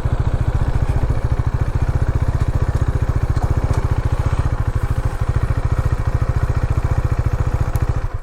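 Motorcycle engine running at a steady idle with even, rapid pulses and no change in pitch, cutting off abruptly near the end.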